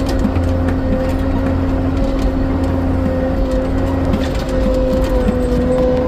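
Log skidder's diesel engine running steadily under way, heard from inside the cab, with an even pitch throughout.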